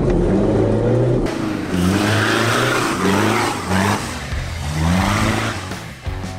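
Toyota off-road 4x4's engine revving hard under load through a muddy trial course, its pitch rising in repeated surges about three times as the throttle is worked.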